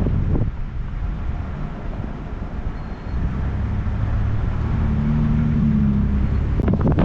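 Ford Bronco driving, with a steady low rumble of engine and road noise; a flat engine hum comes through about halfway in, and rougher buffeting noise starts near the end.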